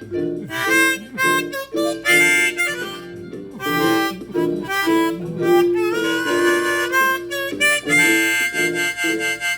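Harmonica playing an instrumental break in short, choppy phrases, with guitar accompaniment underneath.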